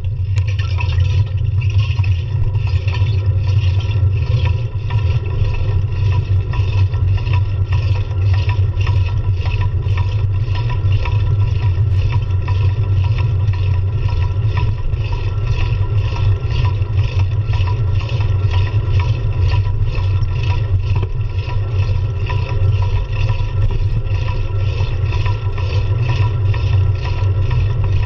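Wind buffeting and road rumble on a handlebar-mounted action camera as the bicycle rolls along at speed: a loud, steady low rumble with hiss above it that pulses at a fast, even rate.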